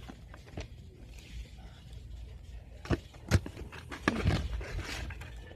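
Foam squishy toys being handled and shifted about in a cardboard display box: scattered knocks and rustles, the sharpest about three seconds in, with a short cluster about a second later.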